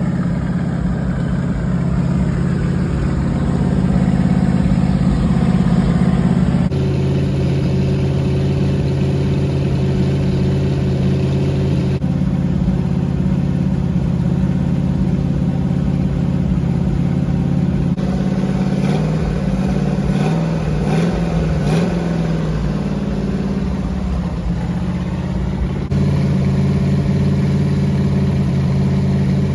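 Freshly built Mopar 440 big-block V8 running steadily on an engine run stand during its break-in. The engine note wavers briefly about two-thirds of the way through.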